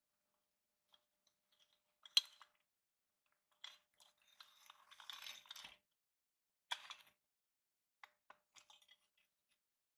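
Old metal toy tractor parts clinking and scraping as they are pried and worked apart by hand and with a screwdriver: a sharp clink about two seconds in, a longer scraping rattle from about four to six seconds, another clink near seven seconds, then a few light clicks.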